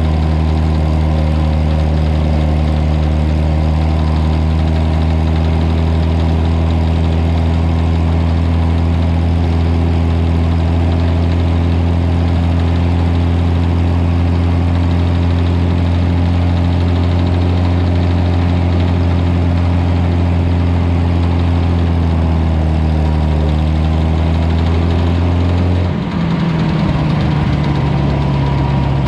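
Old tractor engine running steadily at a constant speed. Near the end it slows, and its pitch drops about 26 seconds in.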